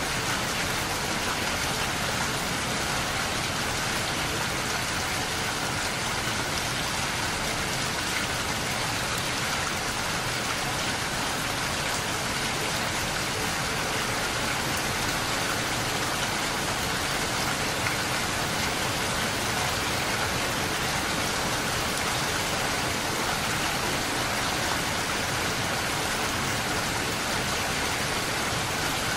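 Steady rain pattering on a window pane, an even hiss of drops with no change in strength.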